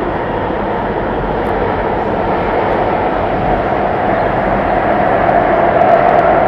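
Running noise heard inside an Alstom Metropolis C751C metro train in motion: a steady rumble and rush, with a mid-pitched hum that grows louder over the last few seconds.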